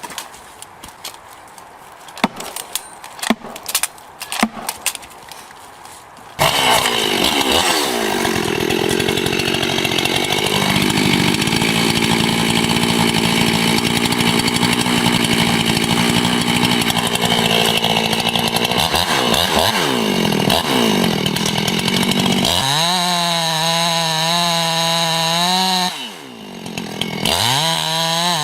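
Scattered knocks and clicks, then about six seconds in a chainsaw comes in suddenly and loud. It runs through the rest of the stretch, its engine pitch dropping and recovering as it works through wood, then revving high and wavering near the end.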